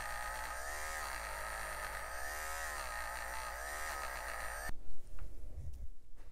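Small rotary tool spinning a felt buffing wheel against a die-cast car body to polish the paint, its motor whine swinging up and down in pitch over and over. It cuts off suddenly near the end, followed by a few faint clicks and knocks of small plastic parts being handled.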